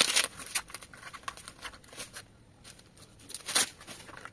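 Packaging being handled and opened, with irregular crinkling and tearing rustles and one louder rip near the end.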